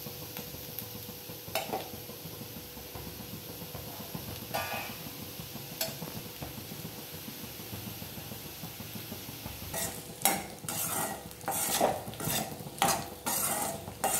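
Potato cubes sizzling quietly in oil in a stainless steel kadai, with a few single scrapes of a steel spatula. From about ten seconds in comes vigorous stirring: the slotted steel spatula scrapes and clatters against the pan in quick repeated strokes.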